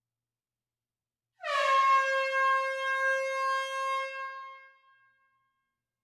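Air horn sounding one long blast in a close hall, starting about a second and a half in. It dips briefly in pitch at the start, holds a steady tone for about three seconds, then dies away.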